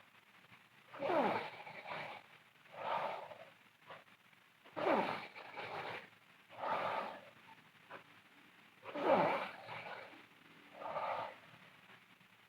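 A sleeping girl snoring loudly: three snores about four seconds apart, each followed by a softer breath out.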